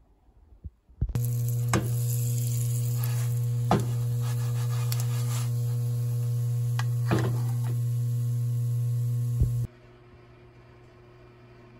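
Small fish-shaped bungeoppang pastries frying in a non-stick frying pan: a steady sizzle over a constant low electrical hum, with a few sharp ticks. It starts about a second in and cuts off abruptly just before the end.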